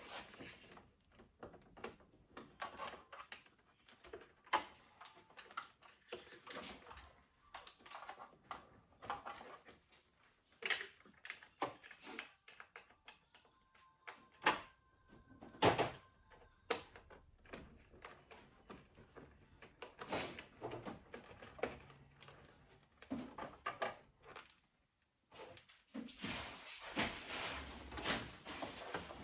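Irregular clicks, knocks and small clatters of coffee-machine parts and tools being handled during disassembly or repair, with a busier stretch of scraping and clicking near the end.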